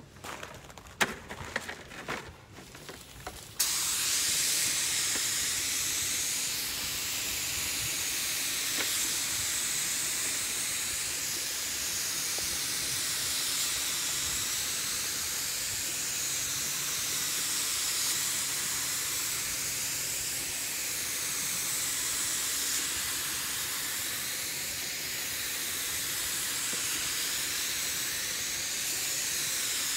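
Compressed-air paint spray gun hissing steadily as a coat of paint is sprayed, the hiss swelling and easing slightly with each pass. It starts abruptly about three and a half seconds in, after a few light knocks.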